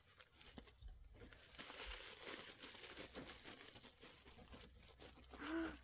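Tissue-paper wrapping crinkling and tearing as it is pulled off a small toy figure, faint and busiest in the middle. A short hummed voice sound near the end.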